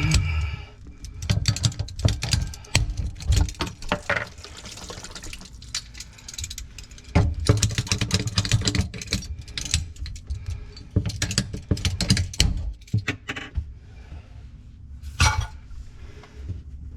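Clicks, clinks and knocks of tools and metal pipe fittings being handled while water plumbing is taken apart, with water running or draining.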